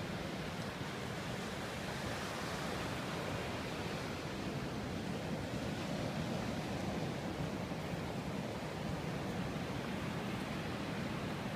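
Ocean surf washing onto a beach with wind, a steady, even rush of noise.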